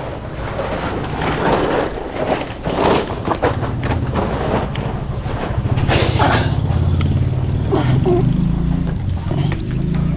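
Repeated knocks, bumps and rustling as someone climbs up into a ceiling space. A low, engine-like motor hum comes in about a third of the way through and grows louder.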